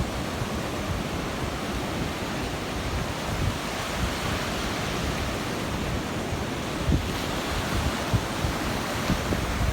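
Ocean surf washing steadily onto the beach, with wind buffeting the microphone in a few short low gusts.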